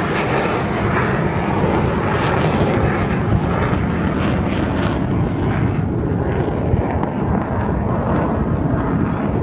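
Avro Vulcan jet bomber's four Rolls-Royce Olympus turbojets running during a flying display, a loud, steady rushing roar.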